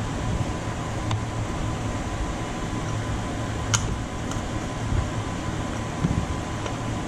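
Steady fan-like whirring hum with a few faint clicks and taps as parts are handled in an engine bay.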